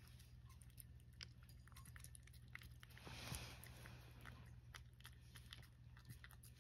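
A cat licking lickable treat paste from a saucer: faint, quick, irregular wet lapping clicks over a low steady hum.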